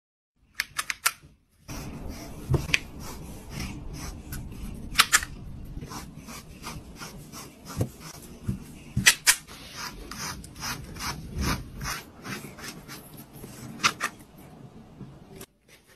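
A slicker brush drawn again and again through a cat's fur: a run of short brushing strokes at an uneven pace over a low steady rumble.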